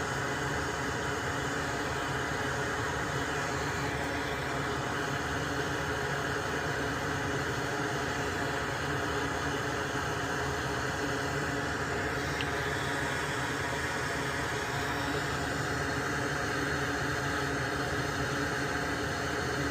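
Steady whirring drone of a small electric fan or motor running at a soldering bench, a hiss with several steady tones in it that holds even throughout.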